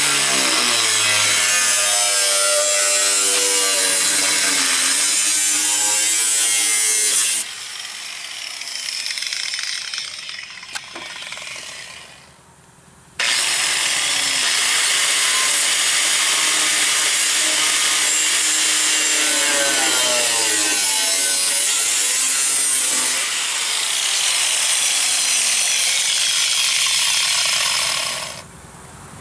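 Porter-Cable angle grinder cutting into rusted sheet steel of the lower door pillar. The motor runs loud under load, then winds down about seven seconds in. It restarts at about thirteen seconds, cuts again, and winds down near the end.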